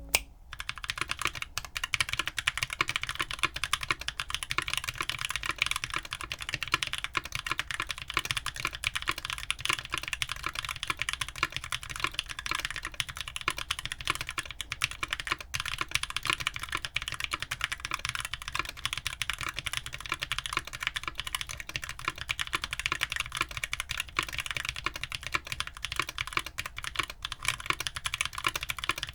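Fast continuous typing on a mechanical keyboard with Keebfront Doom long-pole tactile switches, lubed with Tribosis 3203 and filmed with Deskeys films. It is a steady stream of keystrokes with a deep, low-pitched return.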